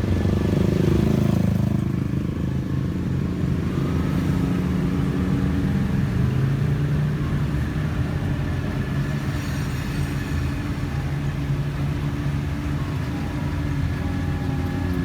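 Engine of an off-road side-by-side UTV running at a fairly steady speed while driving, its pitch shifting only slightly.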